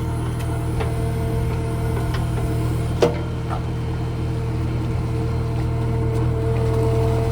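Backhoe loader's diesel engine running steadily, with scattered metallic clicks and one sharp knock about three seconds in.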